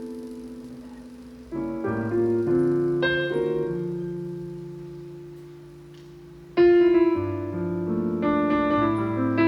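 Piano playing slow chords, each struck and left to ring and fade; a loud new chord comes in about two-thirds of the way through, followed by more chords.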